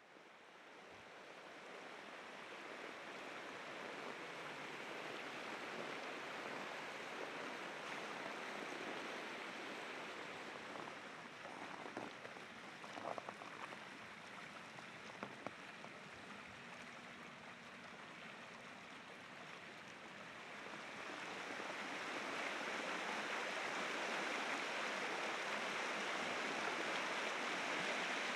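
Steady rush of water over river rapids, fading in at the start and growing louder about two-thirds of the way through, with a few faint knocks near the middle.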